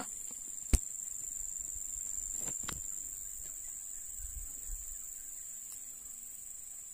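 A steady high-pitched insect drone from the swamp vegetation, with a single sharp knock about a second in and a fainter click a couple of seconds later.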